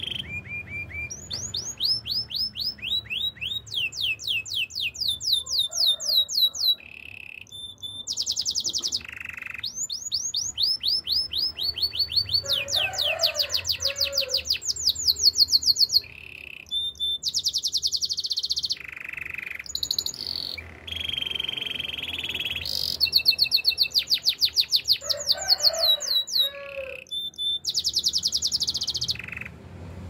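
Canary singing a long song of rapid trills: fast runs of evenly repeated sweeping notes that change pitch from run to run, broken by short pauses.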